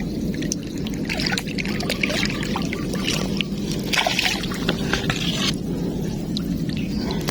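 Water splashing and trickling over a steady low rumble, the splashing loudest about four seconds in.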